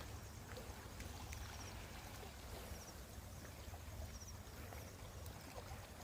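Faint outdoor ambience by a river: a low steady rumble, with a short high chirp of three or four quick notes repeating about every second and a half.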